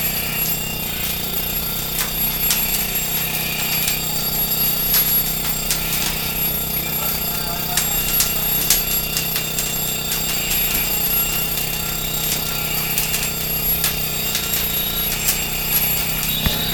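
Stacked wooden pallets burning in a live-fire burn room: irregular crackling and popping over a steady hum, with brief high-pitched tones coming and going.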